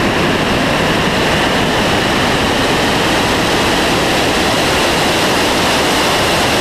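Steady, loud wind rush over a camera mounted outside a car speeding down a drag strip, with no distinct engine note coming through.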